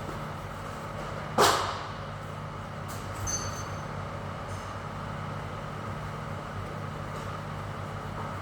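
A steady low mechanical hum, with one sharp knock about a second and a half in and a faint short high chirp a couple of seconds later.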